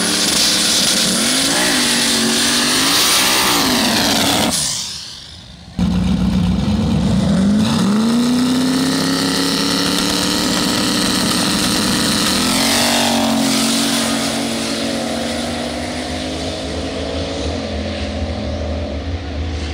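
Two Fox-body Mustang drag cars at the starting line, engines revving up and down. After a cut about six seconds in, the engines are brought up and held at high revs. They climb again about 13 seconds in as the cars launch, then run on steadily, slowly growing quieter as they pull away down the strip.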